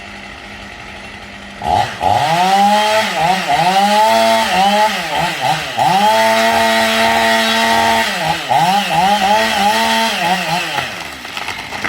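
Chainsaw engine revved up and down in quick blips, held at high revs for a couple of seconds in the middle, easing off near the end. A steady low hum, as at idle, comes before the first rev.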